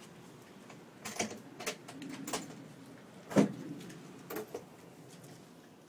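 A handful of short knocks and thumps at irregular intervals, the loudest about three and a half seconds in, over a faint steady background hum.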